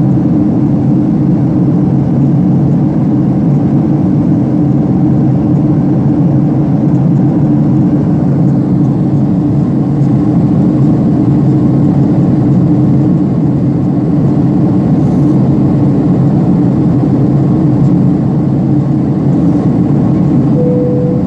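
Airliner cabin noise: a steady, loud drone of engines and rushing air heard from inside the passenger cabin in flight. A short steady tone comes in near the end.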